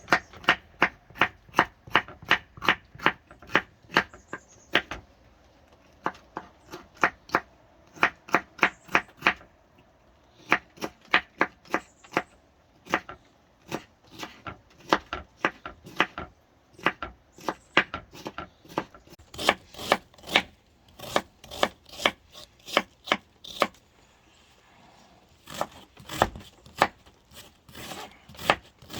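Knife chopping vegetables: sharp, rhythmic chops about three a second, in runs broken by short pauses.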